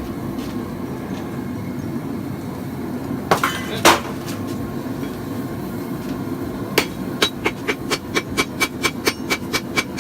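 A hand hammer strikes a hot layered Damascus steel billet on an anvil to set the forge welds, over a steady low rumble. Two heavy blows land a few seconds in. Then, after a pause, a run of quick, evenly spaced strikes follows at about three a second, each with a short ring.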